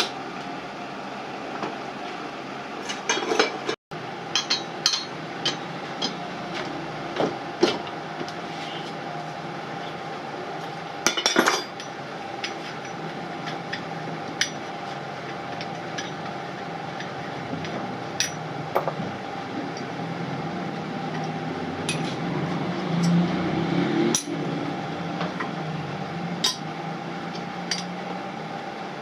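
Metal tools and parts knocking and clinking at irregular intervals, with a quick cluster of strikes about eleven seconds in, over a steady background hum.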